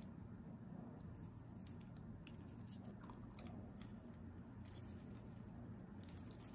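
Wooden stir stick scraping and tapping inside a small plastic resin mixing cup: a scatter of faint small clicks and crackles over a low steady hum.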